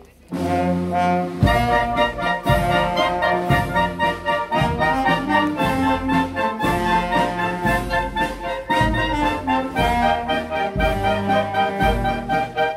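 Marching wind band of clarinets, saxophones and brass playing, with a steady low beat about once a second. The music drops out for a moment at the very start and comes straight back in.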